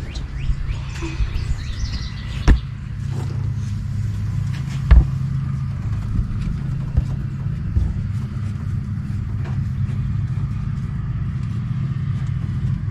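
A vehicle engine idling with a steady low rumble, with two sharp knocks a couple of seconds apart.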